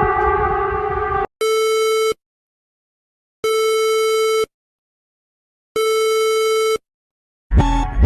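Emergency alert alarm: a harsh, buzzing alert tone cuts off about a second in, followed by three long electronic beeps about two seconds apart with silence between them. Guitar music starts near the end.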